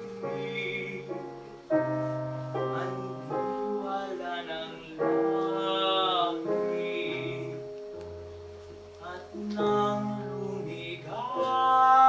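A male baritone sings a slow Tagalog ballad over piano accompaniment, holding some long notes with vibrato.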